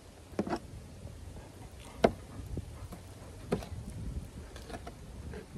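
Damascus hunting knife cutting through small raw chickens on a plastic table, with a few short, sharp clicks and cracks, the sharpest about two seconds in.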